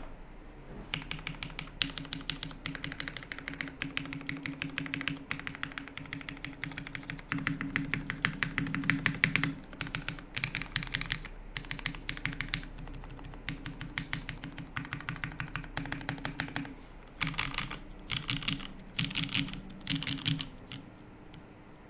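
Typing on a Haus 65% mechanical keyboard with lubed vintage Cherry MX Black linear switches in a top-mounted aluminium plate. Keystrokes run in steady streams with brief pauses and end in a few short quick bursts near the end.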